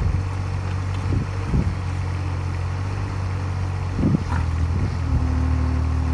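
Heavy earthmover's diesel engine running steadily with a low hum, with a few short knocks, and a higher steady tone joining about five seconds in.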